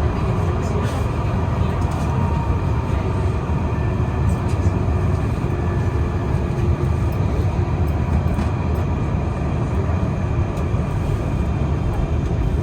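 Alstom Citadis 305 tram running between stops, heard on board: a steady low rumble of wheels on rail and drive, with a faint whine and a few light clicks.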